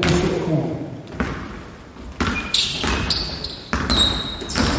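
A basketball bounced repeatedly on a hardwood gym floor as a player dribbles on a drive, the bounces coming at an uneven pace. In the second half, short high squeaks, typical of sneakers on the court, come in between the bounces.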